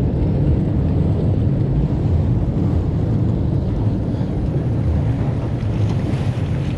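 Steady low rumble of boat engine noise mixed with wind buffeting the microphone over choppy water.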